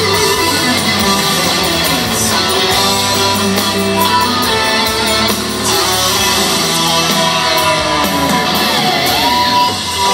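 Live band music led by a Stratocaster-style electric guitar playing an instrumental passage with notes that bend and slide in pitch.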